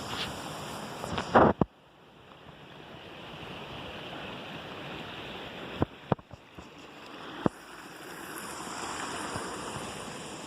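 Rushing water from a stream or waterfall, a steady hiss. It is broken by a loud knock about a second and a half in, after which the sound briefly drops away, and a few sharp clicks a little past the middle.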